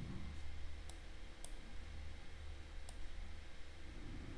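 Three faint, short computer mouse clicks over a low, steady hum.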